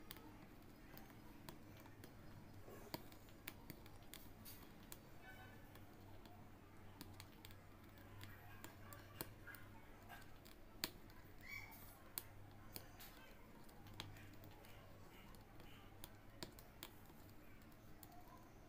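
Faint, irregular clicks of an aari hook needle punching through fabric stretched taut on an embroidery frame as purple thread is worked into filling stitches, over a low steady hum.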